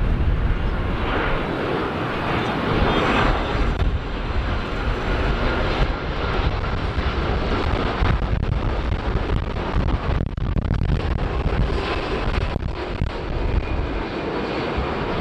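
Jet engines of a Boeing 787 Dreamliner airliner on landing approach, a steady low rumble.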